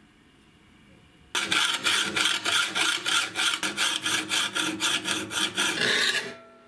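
A flat hand file rasping along the edge of a sandblasted steel billhook blade in quick back-and-forth strokes, several a second, starting about a second in and tailing off near the end. The file is taking down the nicks and dents along the blade's edge.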